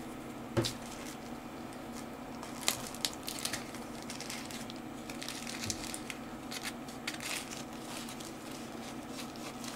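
Small clear plastic zip-lock bag crinkling and rustling as it is handled and bundles of thread are pushed into it, in irregular short crackles.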